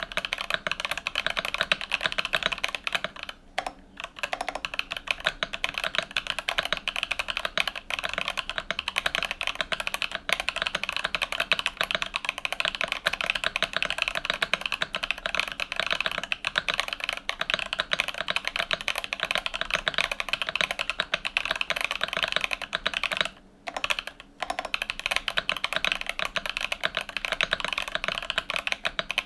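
Fast continuous typing on a custom mechanical keyboard with lubed LOGA Chathai linear switches, an FR4 plate, no foam and tall SA profile keycaps. The typing pauses briefly twice, once about three and a half seconds in and once near the end.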